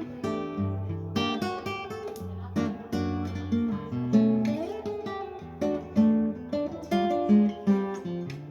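Yamaha CG-TA TransAcoustic nylon-string classical guitar played fingerstyle: a plucked melody of single notes and chords over ringing bass notes.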